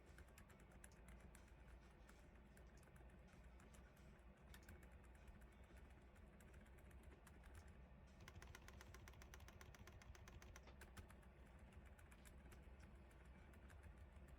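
Faint, rapid typing on a Keychron C3 Pro mechanical keyboard quieted with O-rings under the keycaps: a steady run of soft, muffled key clicks, busiest a little past the middle.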